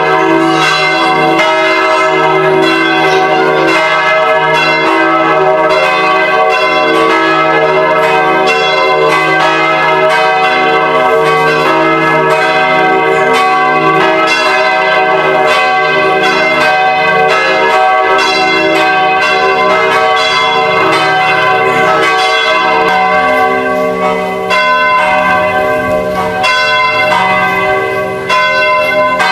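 Church bells pealing, several bells struck in quick succession so that their ringing overlaps in a continuous, loud jangle.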